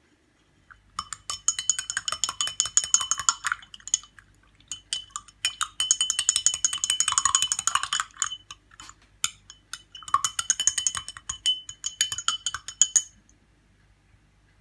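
Metal teaspoon stirring coffee in a tall glass, clinking rapidly against the glass with a ringing tone, in three bouts of a few seconds each.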